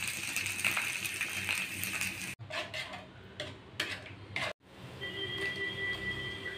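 Three short cooking sounds with abrupt cuts between them. First, okra sizzling in oil on an iron tawa. Then, about two seconds in, a wooden spatula scraping and stirring masala in a nonstick kadai. Then okra is tipped into the pan while a steady high-pitched tone sounds behind it.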